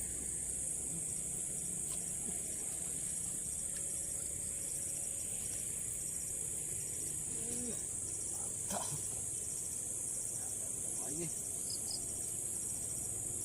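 A steady, high-pitched chorus of crickets and other insects chirring without a break, with fainter rapid pulsed chirps beneath it.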